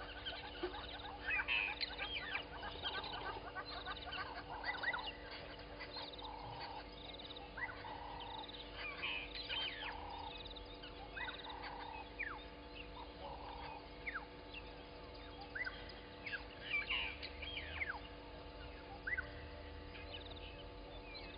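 Dawn bird chorus at a bushveld waterhole: many birds chirping and whistling, with one bird repeating a low note about once every 0.7 s for most of the first two-thirds, then stopping.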